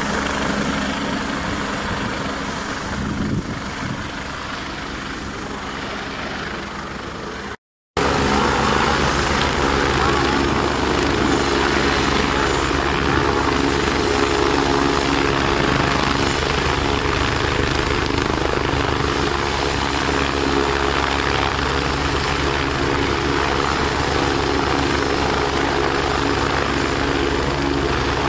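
Helicopter turbine and main rotor running, with a high steady turbine whine. The sound drops out briefly about eight seconds in, then comes back louder and steadier from a helicopter running with its rotor turning on the ground.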